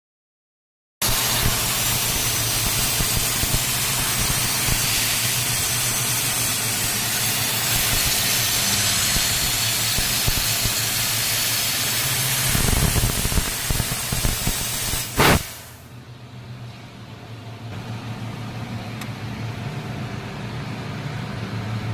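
CNC laser cutting machine running: a loud, steady hiss over a low hum. About fifteen seconds in there is a sharp click, after which the hiss stops and only a quieter hum is left.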